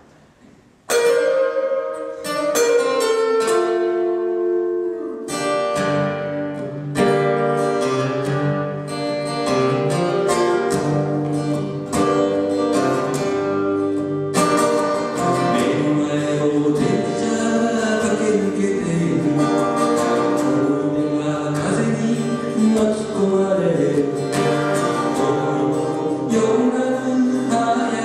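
Music: a song with guitar and singing, starting abruptly about a second in.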